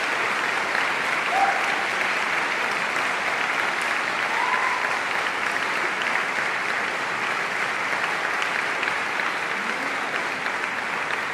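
Audience applauding steadily after a choral performance, with a few brief shouts of cheering heard over the clapping.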